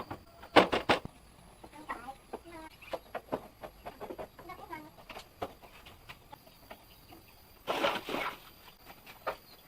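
Chickens clucking in short bending notes, with a few loud brief scuffling noises about half a second in and near the end.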